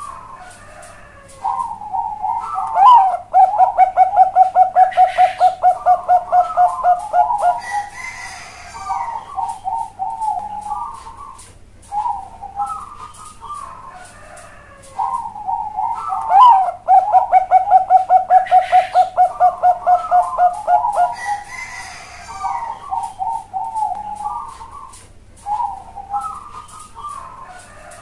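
Bangkok-strain zebra dove (perkutut) singing its cooing competition song twice. Each phrase opens with a few coos, runs into a long rapid series of about five evenly spaced notes a second, and ends in lower trailing coos. The voice is the big, hollow 'suara besar dan cowong' type prized in contest birds.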